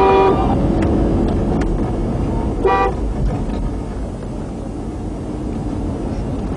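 Car horn blaring as a held blast that cuts off just after the start, then the steady rumble of SUVs driving on a dirt road, with one short horn toot about two and a half seconds in.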